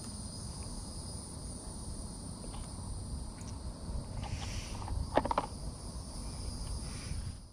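Insects trilling steadily in two continuous high tones, over a low rumble, with a brief faint knock about five seconds in.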